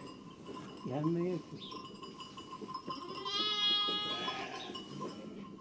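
Sheep bleating in a flock: a short lower call about a second in, then a long, high-pitched bleat about three seconds in, typical of a lamb.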